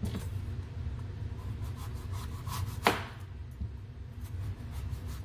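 Chef's knife slicing through kabocha squash and knocking on a wooden cutting board, with one sharp knock about three seconds in, over a steady low hum.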